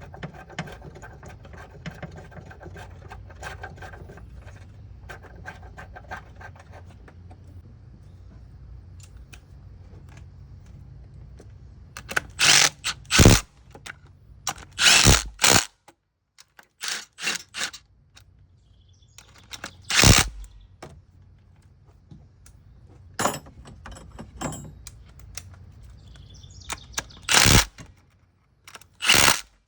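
Mechanic's tools and metal parts: a fast run of light clicks over a low hum for the first several seconds, then a series of sharp, loud clanks and knocks spread through the rest.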